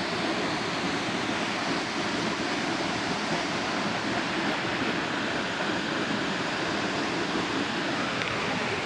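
A waterfall rushing steadily as it plunges into a rock pool.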